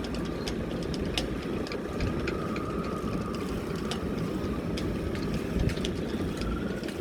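Strong wind buffeting the microphone in a gusty, uneven rumble over a boat's engine running, with scattered sharp clicks and knocks.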